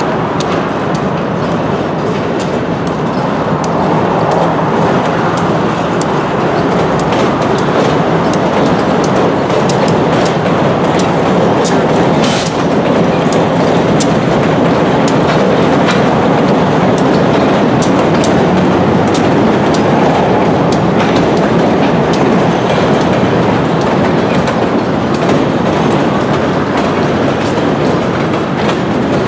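Freight cars of a short train rolling across a steel railway bridge: a steady rumble with rapid clicking of the wheels over the rail joints, and a brief high squeal about twelve seconds in.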